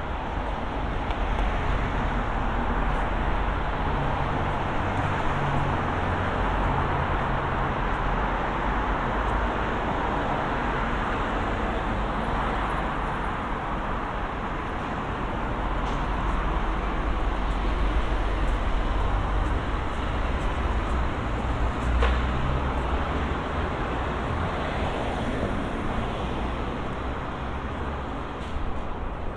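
Steady city road traffic: motor vehicles passing with low engine rumble and tyre noise, and one short sharp click about three-quarters of the way through.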